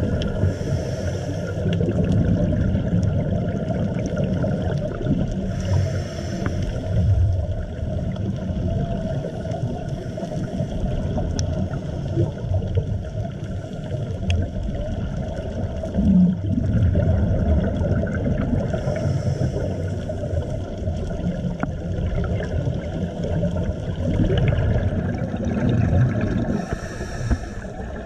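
Scuba breathing heard underwater: a constant low rumble of exhaled regulator bubbles. A short regulator hiss comes four times, spaced several seconds apart, one for each inhale.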